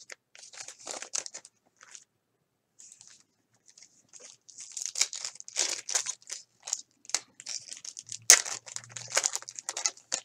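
Crinkling and rustling of clear plastic bags and a foil baseball-card pack wrapper being handled, in short irregular crackles, with one sharp snap about eight seconds in.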